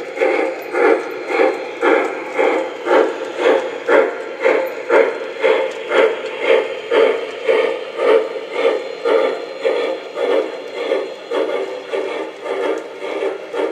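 An O scale model steam locomotive's onboard sound system chuffing steadily, about two chuffs a second, as the locomotive runs under power. The chuffs come through the model's small speaker.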